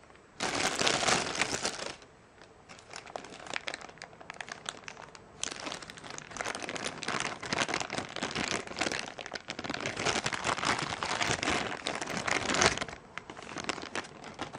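Thin clear plastic bag crinkling and rustling as hands unwrap a small wooden clog from it, in uneven bursts that die away shortly before the end.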